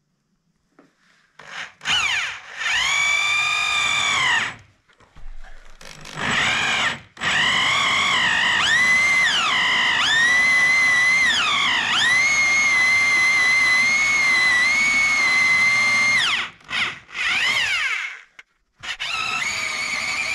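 Electric power drill running in several bursts, its motor whine sagging in pitch and recovering as the bit loads up and frees.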